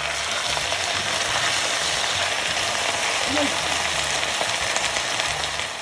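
Raw chicken pieces sizzling as they hit hot oil and sliced onions in a heavy pot: a steady, loud frying hiss that eases slightly near the end.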